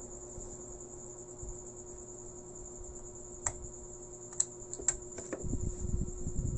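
Several sharp light clicks, multimeter test probe tips tapping against a CRT TV's circuit board and its metal shield, over a steady faint high-pitched whine. In the last second, low rumbling knocks as hands shift on the board.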